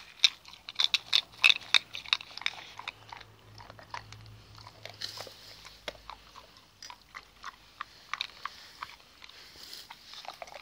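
A dog biting and chewing with sharp crunching clicks of its teeth. The clicks come fast for the first couple of seconds, then grow sparse and irregular.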